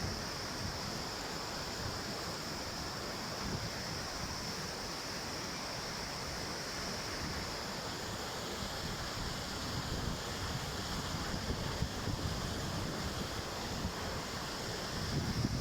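Steady rush of a large waterfall's falling water, with wind buffeting the microphone in low gusts that grow stronger near the end.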